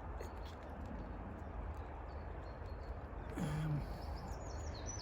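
Steady rustling hiss with a low rumble beneath, a brief low murmured voice about three and a half seconds in, and a few faint high bird chirps near the end.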